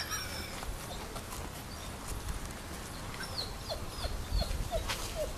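A bird calling in the background: a run of short, falling notes, about three a second, from about three seconds in, after a single chirp at the start.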